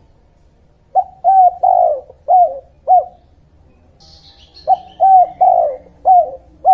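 Dove cooing: two phrases of five short coos, the third coo of each drawn out longer. Faint higher chirps from another small bird come between the phrases.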